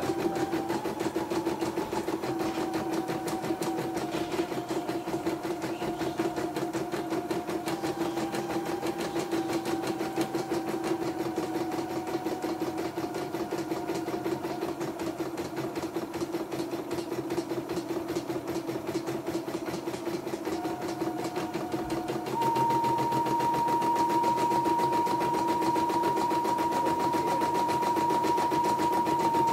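YOKO portable computerized embroidery machine running and stitching out a design: a rapid even needle rhythm over a steady motor hum, with a higher whine that shifts in pitch every second or two as the hoop moves. About 22 seconds in it grows louder and the whine settles on one higher steady pitch.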